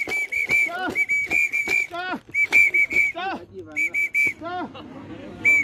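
A whistle blown in rapid short toots, about five a second, in several runs with short breaks, the last one near the end. Between the toots come short, sharp voice calls that rise and fall in pitch.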